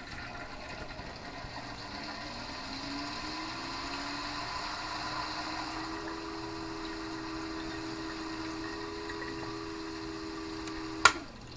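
Water-cooling pump of a freshly filled PC loop starting up: its whine rises in pitch over several seconds and then holds steady over the rushing of coolant. Near the end a click, and the pump stops.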